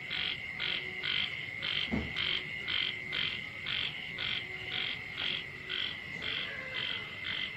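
Frogs calling after rain: a short call repeats about twice a second over a steady, high, unbroken chorus. A single knock sounds about two seconds in.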